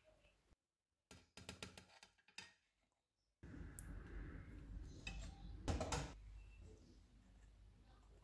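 Metal spatula clicking against a ceramic plate as pizza pinwheels are set down: a few light clicks in the first couple of seconds, then one louder knock a little before six seconds in over faint steady background noise.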